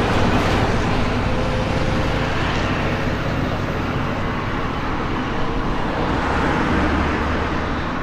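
Road-vehicle noise: a steady rush of motor traffic passing on the road.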